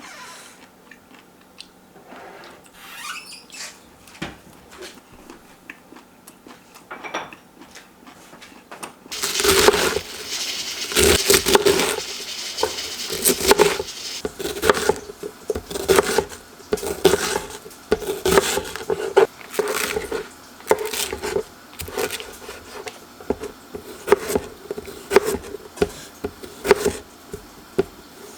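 Kitchen food-preparation sounds: a few faint clicks and taps, then from about nine seconds in a busy run of knocks, clatter and scrapes, several a second.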